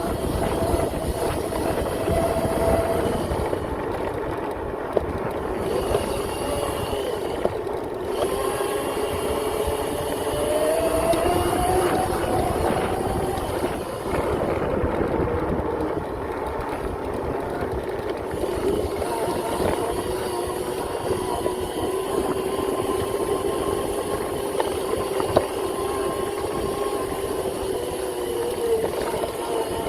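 Upgraded 5000 W electric motor of a Razor MX650 pit bike whining under way, its pitch rising and falling with speed, over a continuous rush of noise.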